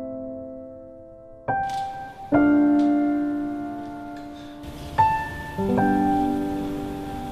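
Slow background piano music: a few notes and chords are struck and left to ring and fade, with new ones coming in about a second and a half in, again soon after, and twice more in the second half. A faint hiss comes in about halfway.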